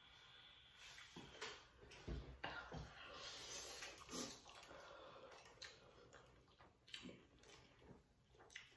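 Faint eating sounds as noodles are eaten from plates with a fork and fingers: scattered light clicks and knocks, and a soft rushing sound about three seconds in.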